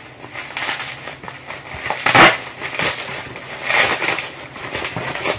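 Bubble wrap being pulled apart and unwrapped by hand. The plastic rustles in irregular handfuls, loudest about two seconds in and again near four seconds.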